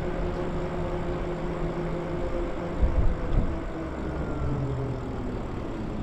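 Lyric Graffiti e-bike's electric motor whining while riding, over a low rumble of wind and tyres on the wet road. The whine holds a steady pitch, then sinks after about two seconds as the bike eases off, with a short low bump about three seconds in.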